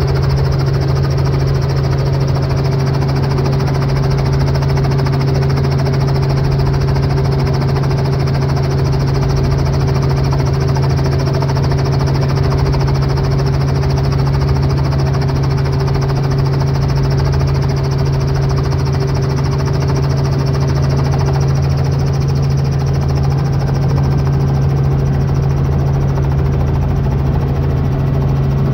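Small helicopter's engine and rotor running steadily on the ground, heard from inside the cabin: a loud, even, low drone.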